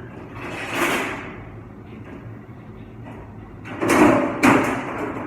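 Sliding and banging of dishwashing equipment in a commercial dish room over a steady machine hum. There is a sliding whoosh about a second in, then a louder burst around four seconds in with two sharp knocks about half a second apart.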